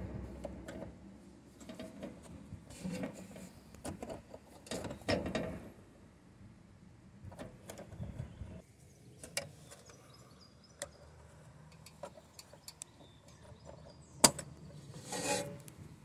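Scattered small clicks, taps and scrapes of a screwdriver working a metal rod and its retaining clip onto the door latch mechanism inside a Land Rover Defender door, with one sharp click near the end.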